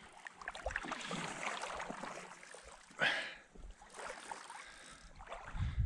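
Small waves lapping and trickling at the shallow lake edge, with a short, louder rush of water about three seconds in and a low thump near the end.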